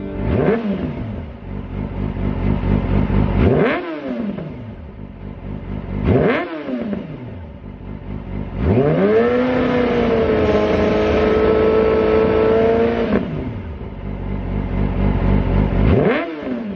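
Yamaha YZF-R6 inline-four engine running through a Lextek full exhaust system and SP1 silencer, revved while standing. It gives three quick throttle blips that fall back to idle, then the revs are held high for about four and a half seconds before dropping, then one more blip near the end.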